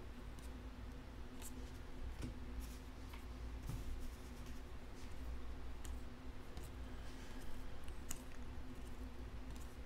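Panini Mosaic football cards flicked and slid one at a time through a stack held in the hand, making scattered light clicks and swishes over a steady low hum.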